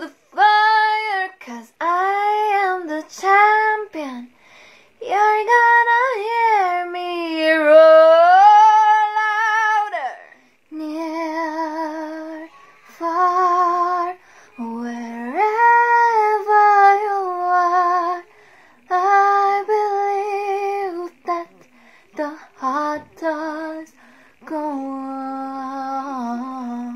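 A young woman singing solo and unaccompanied, in phrases of long held notes with a clear vibrato, separated by short breaths and pauses.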